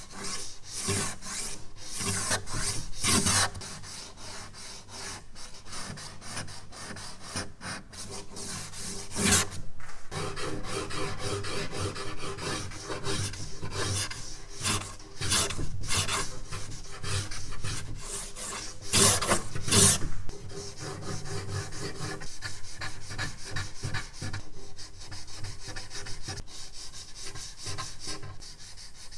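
A charcoal stick scratching and rubbing across drawing paper in quick, uneven sketching strokes, with a few louder, harder strokes in the middle.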